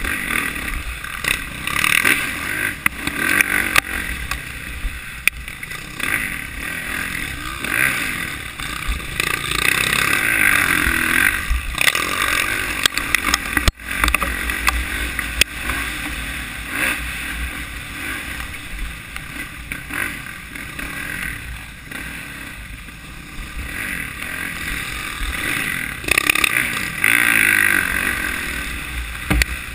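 Dirt bike engine running under load, its pitch rising and falling as the throttle is worked, with knocks and clatter from the rough ground. The sound cuts out for an instant about fourteen seconds in.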